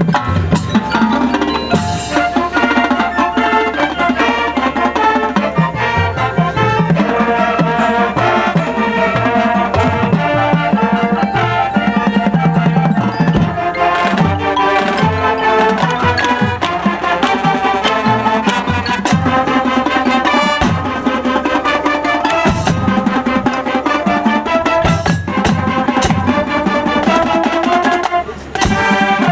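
High school marching band playing its competition field show, with drums and front-ensemble mallet percussion such as marimba and xylophone sounding clearly among the band. The music dips briefly near the end, then carries on.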